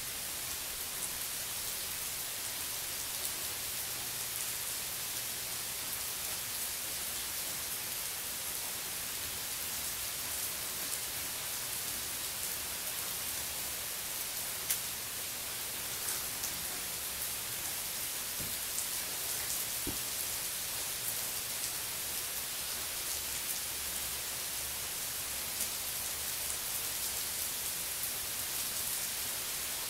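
Heavy, continuous rain of a tropical storm falling on a swimming pool and its concrete deck: a steady, even hiss with a few sharper drop ticks.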